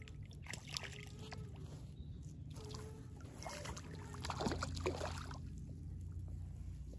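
A hooked trout splashing and thrashing at the water's surface near the bank, in a burst of splashes around the middle, over a steady low rumble of wind on the microphone.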